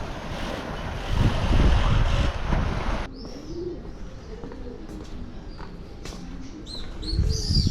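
Wind rushing on the microphone with low gusts, cutting off suddenly about three seconds in; then birds calling, with short high chirps and lower cooing calls, and another low gust of wind near the end.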